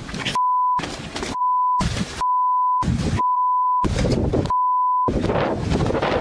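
Censor bleeps: a pure 1 kHz beep tone dropped in five times, each about half a second long, blanking out the clip's own audio, most likely bleeping out swearing. Between the bleeps, rough, noisy outdoor audio is heard.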